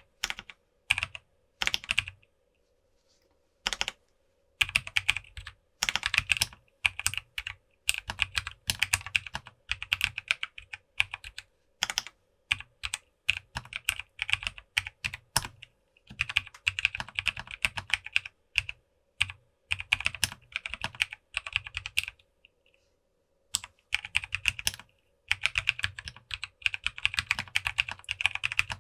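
Typing on a FancyAlice66 custom mechanical keyboard with an acrylic case, POM plate and lubed Kailh Clione Limacina tactile switches, with a thocky sound. The keystrokes come in fast bursts, with two short pauses, about two seconds in and near the twenty-two-second mark.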